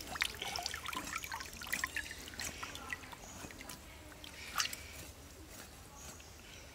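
River water trickling, with scattered small drips and splashes as a wet cow stomach is handled in the shallows.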